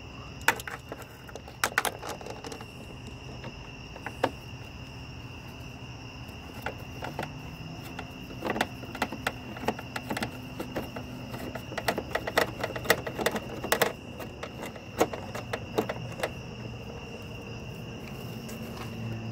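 Scattered light metallic clicks and taps from a screwdriver-handled socket driver turning the headlight's mounting bolts, over a steady high-pitched insect trill.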